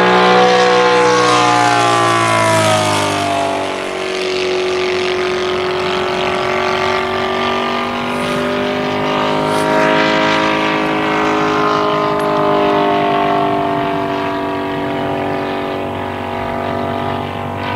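Kolm IL 155 petrol engine, fitted with a muffler and turning a three-blade propeller, in a large Spitfire model in flight. Its note drops in pitch as the plane passes about three to four seconds in, then holds a steady drone that swells and eases gently as the model flies its circuit.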